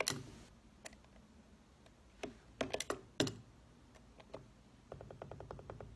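Stanley knife blade being pushed and scraped into old layers of paint around a door hinge to score the paint. It makes scattered sharp clicks and scratches, then a quick run of small ticks near the end as the blade chatters along the edge of the hinge.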